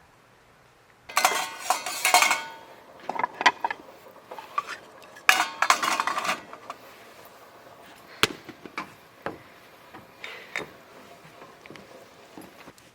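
Dishes and cutlery clattering: two bursts of utensils and pans being knocked together, about a second in and again about five seconds in, then scattered single knocks.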